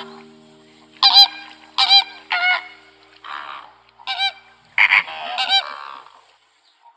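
Flamingos honking: a string of short, nasal, goose-like honks, some in quick pairs.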